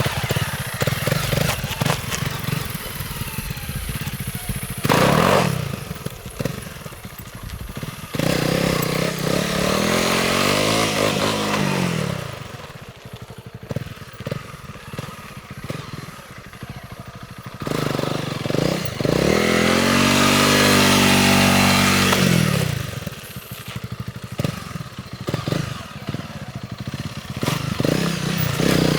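Honda CRF300L's single-cylinder engine running through its stock exhaust. It idles with a short throttle blip about five seconds in, then is revved up and allowed to fall back twice, around ten and twenty seconds in.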